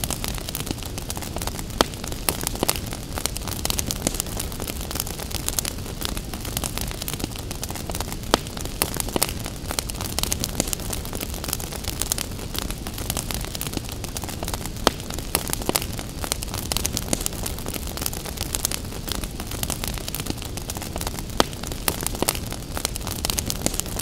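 Wood fire crackling: frequent sharp pops and snaps over a steady hiss with a low rumble.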